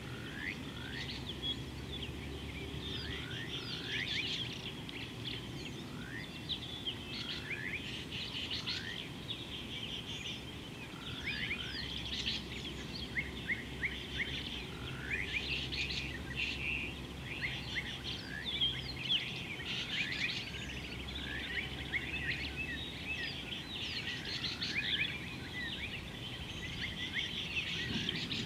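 Many small birds chirping and calling at once, a busy chorus of quick, sweeping high notes, over a steady low background rumble.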